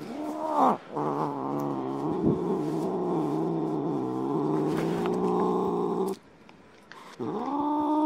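Wet tabby cat, wrapped in a towel after a bath, yowling in low, wavering growl-yowls: a short call, then one lasting about five seconds that breaks off, and another beginning near the end. This is an upset cat protesting at being held.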